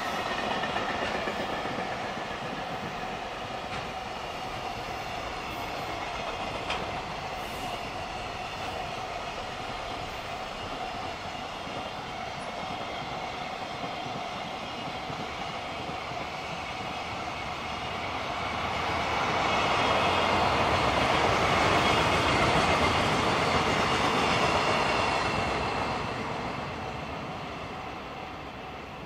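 Freight train's container and flat wagons rolling past, with a steady rumble and clatter of wheels on the rails; the noise swells louder for several seconds about two-thirds through, then fades. A level-crossing warning bell rings steadily throughout.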